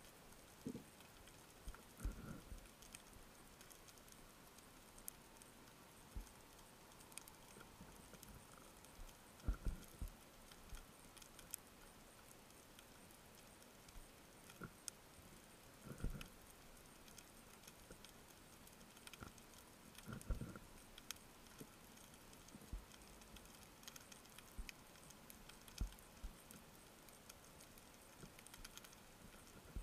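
Near-silent underwater ambience heard through a camera housing: a faint hiss with scattered faint clicks and a few soft low knocks, the clearest about ten, sixteen and twenty seconds in.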